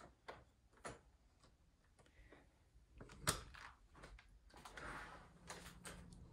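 Faint footsteps and taps of a person walking on a tile floor, with one sharper click about three seconds in.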